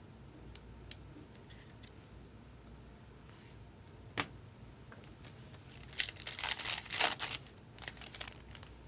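A few light clicks and taps of cards being handled, then about six seconds in a second or so of crinkling and tearing, typical of a foil trading-card pack wrapper being torn open.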